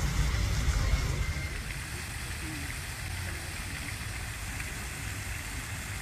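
Water from an ornamental fountain's jets splashing into its stone basin: a steady hiss of falling water over a low rumble that is louder for the first second or so.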